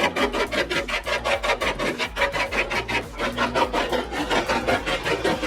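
Rapid, even rasping strokes, about six or seven a second, kept up without a break.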